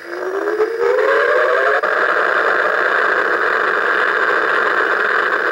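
Star Trek Borg Cube electronic coin bank playing its tractor-beam sound effect from its speaker as the Enterprise model is drawn into the cube. A whine rises in pitch over the first two seconds, over a steady electronic hum.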